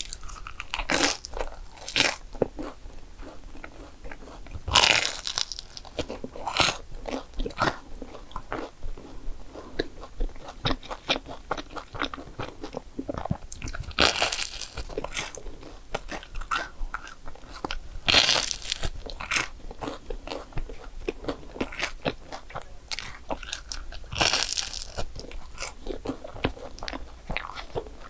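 Crunching bites into crisp croissant waffles (croffles), with chewing and small crackles in between; big crunchy bites come every few seconds.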